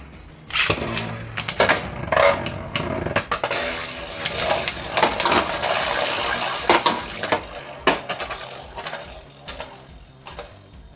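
Beyblade spinning tops launched into a plastic stadium, whirring and clashing with many sharp clacks, the sound thinning out near the end as they lose spin.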